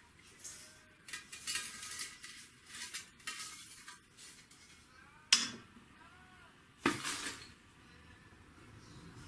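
Metal tools scraping and clinking in a fireplace, with two sharp clanks, the loudest sounds, about five and about seven seconds in.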